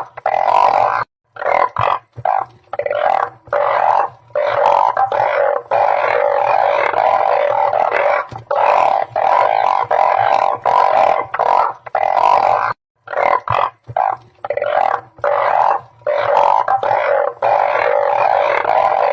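A dense chorus of balloon frogs (Glyphoglossus molossus) calling: many low, droning calls overlapping into a continuous din. It breaks off briefly twice, about a second in and about two-thirds of the way through. This is a breeding chorus, the kind played as a lure to draw the frogs in.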